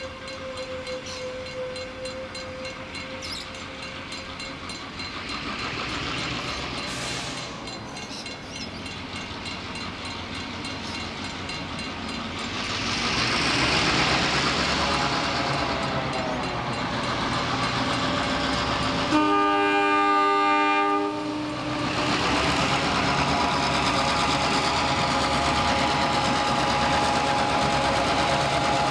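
Clyde-built EMD 42 class diesel-electric locomotives pulling away with a freight train, their V16 engines working and growing louder as they come close and pass. About twenty seconds in, a horn sounds one blast of about two seconds.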